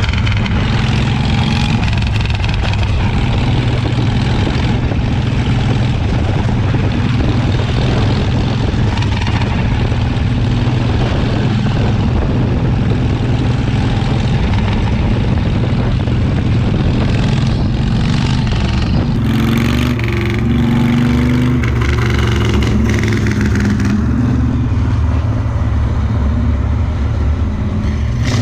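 Harley-Davidson Shovelhead V-twin engine on a chopper running loud and steady on the move, its note shifting for a few seconds about two-thirds of the way through.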